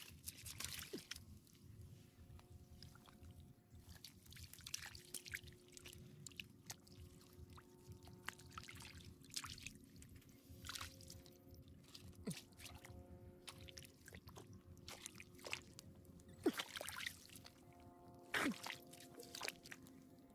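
Hands splashing and squelching in a shallow muddy puddle while groping for frogs, in short irregular splashes and drips, a few of them louder near the end.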